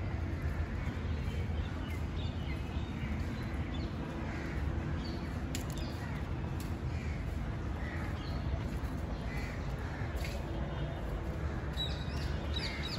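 Birds calling now and then, short calls scattered through, over a steady low rumble.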